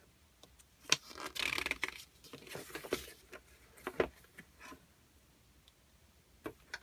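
Handling of a paper instruction leaflet: a sharp tap about a second in, a rustle of paper as pages are turned, then a few light knocks and clicks.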